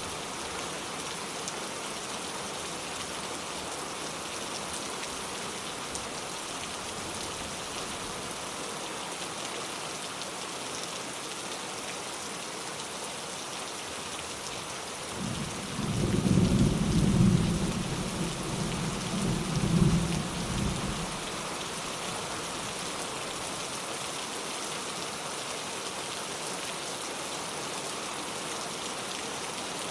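Steady rain falling, with a roll of thunder rumbling for about six seconds around the middle, swelling twice before it fades.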